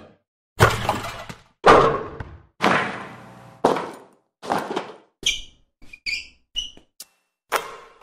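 Basketball sound effects played one after another: four heavy impacts about a second apart, each ringing out, then quicker hits mixed with brief high squeaks.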